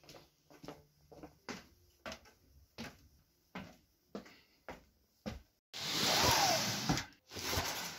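Footsteps at a steady walking pace, about two a second, then two louder bursts of scraping noise, the first with a short falling squeak.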